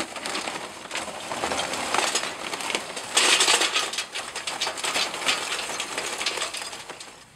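Royal Oak lump charcoal poured from its paper sack into a metal chimney starter: a dense clatter of lumps tumbling against the metal and each other. Loudest about three seconds in, thinning out near the end.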